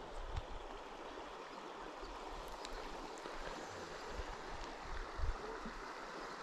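Flowing river water, a steady rush with a few faint clicks over it.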